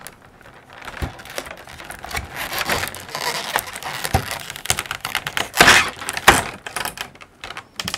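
Packing tape being picked at and pulled off a cardboard box: an irregular run of crackling, clicking and short rips, with two louder tears a little after the middle.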